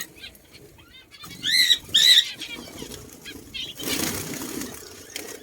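Small birds chirping, two loud arched calls about one and a half seconds in, with a burst of wing flapping about four seconds in.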